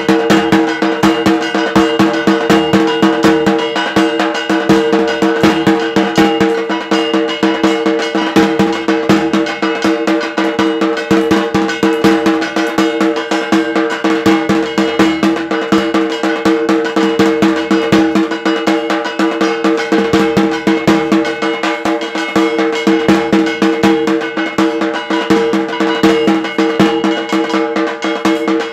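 Fast, continuous drumming with clattering percussion over a steady ringing tone, the rhythm that accompanies a Kali puja.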